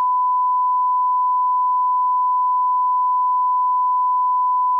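Steady line-up test tone, a single unbroken pitch: the reference tone that goes with colour bars at the head of a video tape.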